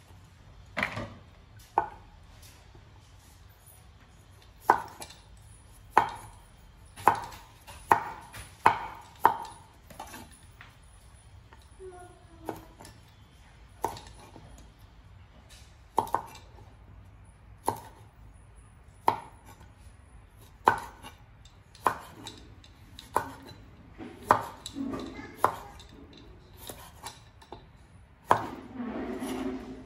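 Cleaver chopping mushrooms on a wooden cutting board: single sharp knocks of the blade striking the wood, irregular, roughly one a second. A softer scraping rustle comes near the end.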